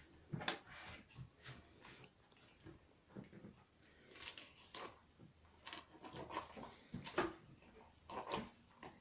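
Kitchen knife cutting at a pike's head on a wooden cutting board: a string of short, irregular knocks and crunches.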